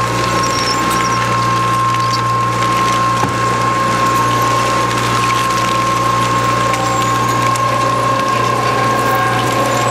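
SSI 600E slow-speed, high-torque dual-shaft shredder, electric-driven, running steadily as its shear knives cut through EPDM rubber door and windshield trim. Under a constant high whine and low hum from the drive comes a dense grinding noise, broken by scattered clicks.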